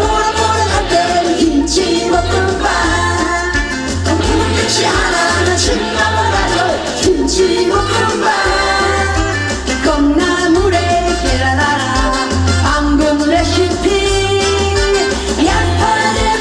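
Live trot song: a woman singing into a microphone over an amplified band with a steady bass beat.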